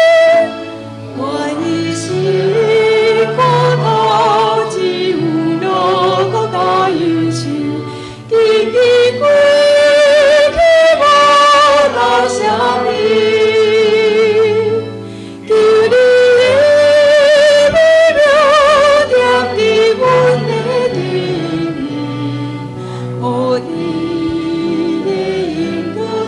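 A woman sings a Taiwanese Hokkien praise-and-worship song solo into a microphone over low sustained accompaniment chords. Her long held notes carry a vibrato, and the loudest of them come in two stretches, about a third and two thirds of the way through.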